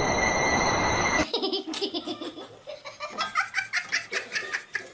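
A loud steady hiss with high whistling tones cuts off about a second in. High-pitched laughter follows in quick repeated bursts.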